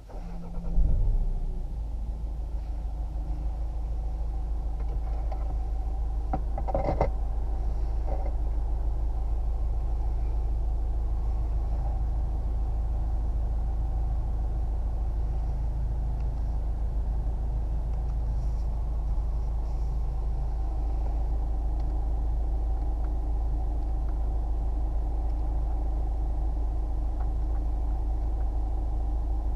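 Opel Insignia's 2.0-litre four-cylinder biturbo diesel starting up, catching about a second in, then idling steadily. A single short clunk about seven seconds in.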